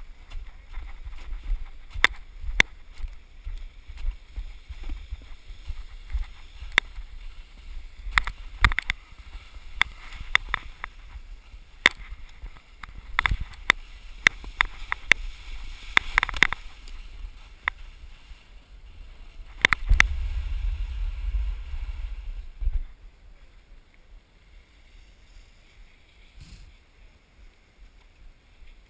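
A snowboard sliding and scraping over tracked, packed snow on a downhill run, with many sharp knocks and clacks as it rides over bumps and wind rumbling on the camera's microphone. The sound drops off sharply about three quarters of the way through as the rider slows.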